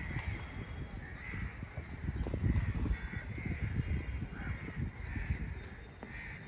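Crows cawing again and again in quick succession, over a low rumble.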